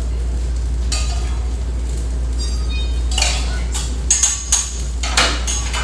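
Plates and metal utensils clinking and clattering at a short-order grill line, several sharp clinks starting about three seconds in, over a steady low hum.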